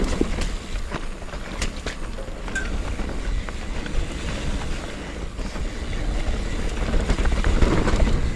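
Canyon Spectral mountain bike descending a dirt singletrack at speed: wind buffeting the microphone, tyres rolling over the ground and the bike rattling, with a few sharp ticks in the first few seconds.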